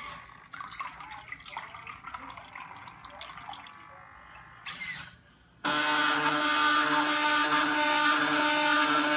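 Homemade robot bartender at work: liquid dripping and bubbling from a spirit optic into a cup, with small irregular clicks. About five and a half seconds in, a much louder steady whir with several steady tones begins, the sound of its stepper-driven mechanism running.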